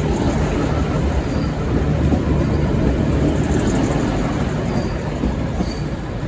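V/Line VLocity diesel multiple unit running past on departure: a steady engine and rail rumble, with a few brief faint high wheel squeals.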